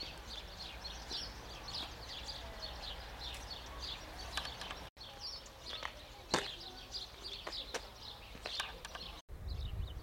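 Small birds singing, with many short high chirping notes repeated throughout. There are a few sharp clicks around the middle, and low wind rumble on the microphone near the end.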